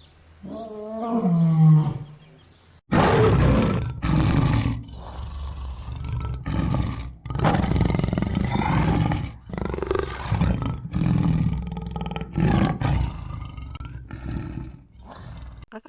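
A big cat roaring: one drawn-out pitched call about half a second in, then from about three seconds in a long run of roars and growls with short gaps between them, stopping just before the end.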